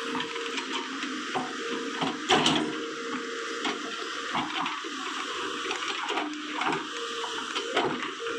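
Tata Hitachi EX 200 hydraulic excavator running as it moves its bucket: a steady mechanical hiss with an on-and-off whine, and one sharp knock a little over two seconds in.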